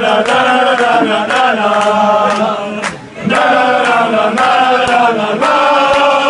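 A crowd of Bosnian football supporters singing a chant together, with handclaps in time; the singing breaks briefly about three seconds in between lines.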